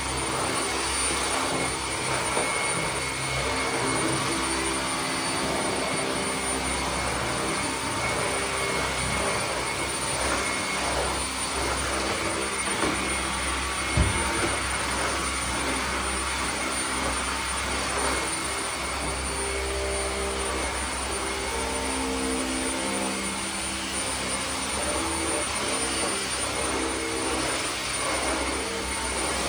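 Steady whirring machine noise, like a motor or fan running, with a thin high whine over it and a single sharp click about 14 seconds in.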